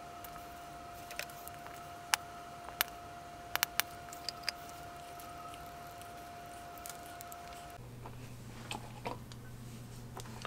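A few light, sharp clicks and taps of small hinges and a plastic cup being handled on a workbench, bunched in the first half, over a faint steady hum.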